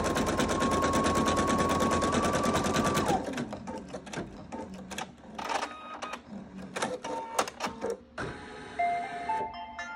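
Computerized embroidery machine stitching at speed, a rapid even needle rattle over a steady motor whine, which stops abruptly about three seconds in. Scattered clicks and short mechanical whirs follow, then a short series of beeps near the end as the design finishes.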